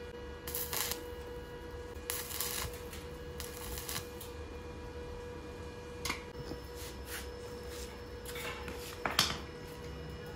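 Stick-welding arc crackling in several short bursts of about half a second each: a small inverter welder laying tack welds on a 4x4 hollow steel tube frame. A steady tone and low hum run beneath.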